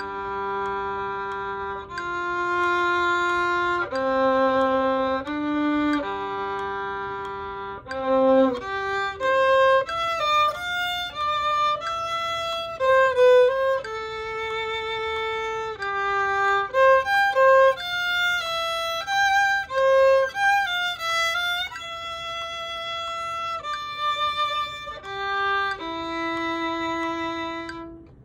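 Solo violin bowed at a slow practice tempo: long held notes for about the first eight seconds, then quicker passages of shorter notes, closing on a held note near the end.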